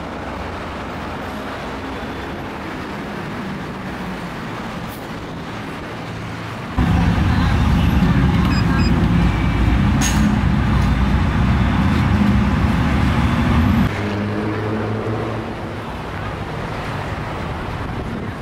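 Road traffic noise. A much louder, deeper stretch of vehicle rumble starts suddenly about seven seconds in and cuts off suddenly about seven seconds later.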